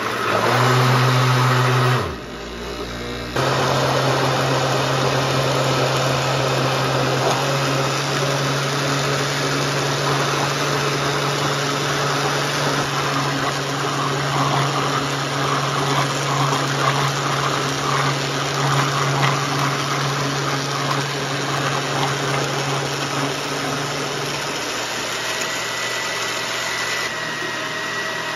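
Countertop blender motor running at speed, pureeing boiled sweet potato chunks in liquid, with a steady hum and the churning of the thick mixture. It breaks off briefly about two seconds in, then runs on; near the end the low hum drops away.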